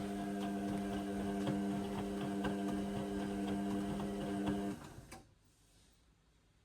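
Indesit washing machine's drum motor running with a steady hum and regular light ticks as the drum turns the wet load, then stopping about five seconds in and leaving near silence: the pause between tumbles of the wash.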